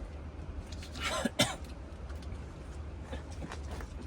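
A person gives a short cough or throat-clear about a second in, over a low steady hum.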